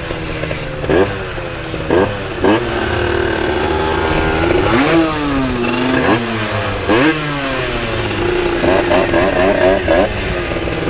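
Small moped engines idling, with repeated short throttle blips that each rise and fall sharply in pitch, and a quick run of blips near the end as the bikes pull away.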